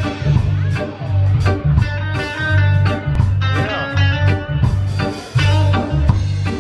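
Live band playing amplified: two electric guitars, bass guitar, electric keyboard and drum kit. The bass line and drum beat are regular and steady.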